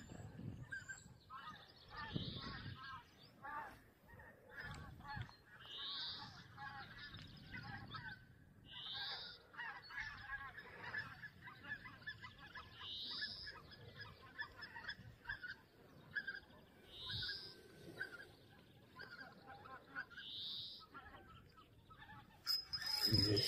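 Birds calling: many short calls from a flock, with a higher, short rising call repeated about every three to four seconds. A loud rustle of handling comes near the end.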